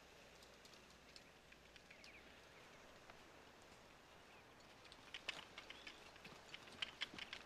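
Near silence: faint woodland ambience with a few soft bird chirps, then from about five seconds in a growing run of light crackling ticks.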